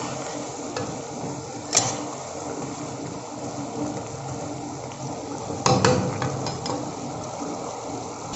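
Spatula stirring chicken feet in a thick gravy in a wok over a steady sizzle, the gravy mostly cooked down. The spatula knocks against the pan about two seconds in and again a few times around six seconds in.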